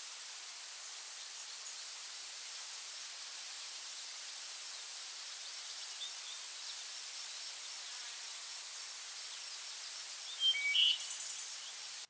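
Outdoor nature ambience: a steady, high-pitched insect drone over an even hiss, with a brief burst of bird chirps near the end.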